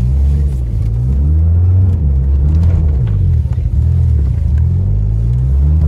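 Audi B5 A4 quattro's engine running with a low rumble, its pitch rising and falling again and again as the revs go up and down.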